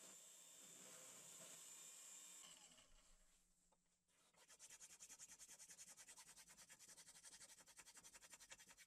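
Benchtop drill press running while a 7mm bit bores into a small wooden plate, a steady hiss with a thin high whine that fades out after about two and a half seconds. From about four and a half seconds in comes a fast, even scraping rhythm of roughly six to seven strokes a second as the slot in the wooden plate is worked, and it cuts off suddenly at the end.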